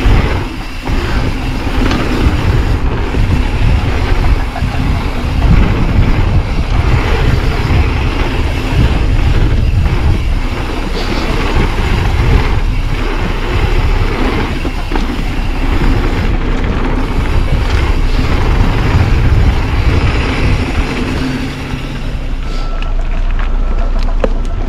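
Mountain bike rolling fast down a dirt flow trail, recorded on a bike-mounted or body-mounted action camera. Wind buffets the microphone over steady tyre roar, and frequent sharp knocks and rattles come from the bike over bumps.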